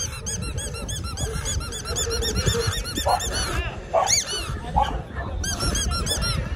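A squeaky toy being squeezed rapidly, giving quick runs of high squeaks, several a second, that break off and start again.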